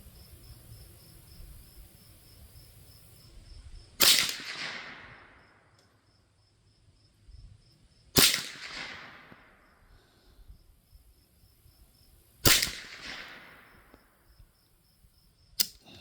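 Mendoza Puma .22 LR rifle firing three single shots about four seconds apart, each a sharp crack with a short trailing echo. A shorter, sharper click comes near the end.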